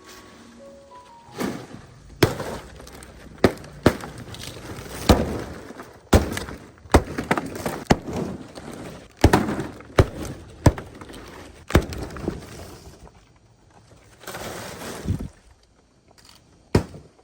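A series of sharp knocks and cracks, about fifteen at uneven intervals, with a brief scraping rustle near the end.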